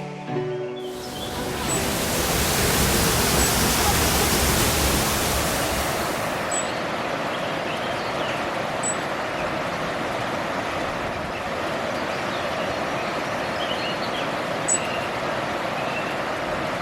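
Steady rushing of running river water, hissier and louder for the first few seconds, then even, with faint high chirps over it.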